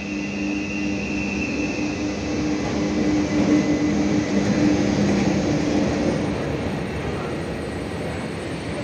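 ČD class 362 electric locomotive running light at low speed past the platform while shunting. It makes a steady two-tone electrical hum over rolling wheel rumble, loudest as it passes three to five seconds in. A thin high whine sounds over the first two seconds, and the hum fades out about six seconds in.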